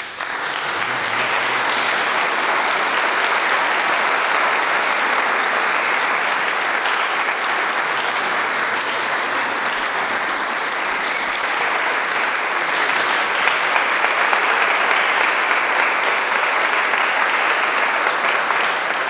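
Congregation applauding in a church: dense, steady clapping from many hands that starts abruptly and holds at an even level.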